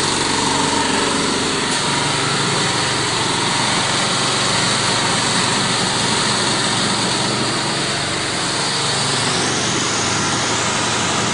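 Banana chip frying line's machinery running: a steady hum of electric motors under the rush of air from the cooling fans above the mesh conveyor. The high hiss gets louder about nine seconds in.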